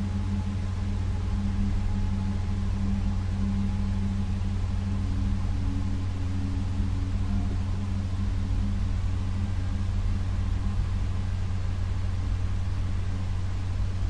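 A steady low droning hum with a few faint held tones above it, unchanging in level throughout.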